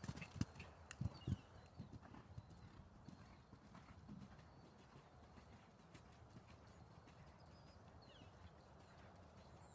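Hoofbeats of a cantering horse on sand arena footing: a few dull thuds close by in the first second or so, then fading as the horse moves away.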